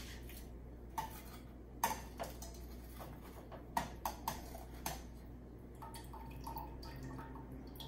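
Metal tongs clinking against a stainless steel saucepan as fried chicken tenders are dipped and turned in sauce: about seven sharp clinks, some with a brief metallic ring, bunched between about one and five seconds in.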